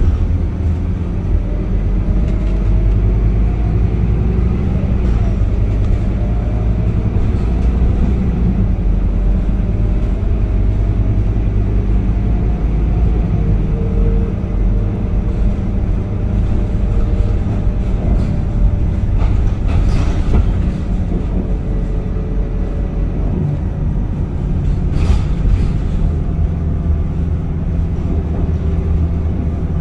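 Scania K230UB single-deck bus running: a steady, loud low engine and road rumble with a faint whine that rises and falls. Two brief bursts of noise cut through about twenty and twenty-five seconds in.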